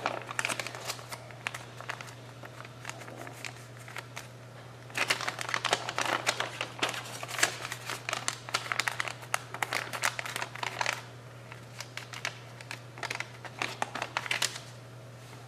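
A square sheet of paper being folded and creased by hand, across the diagonals and into smaller squares: crisp crinkling and rustling in bursts, busiest from about five to eleven seconds in and again near the end. A steady low hum runs underneath.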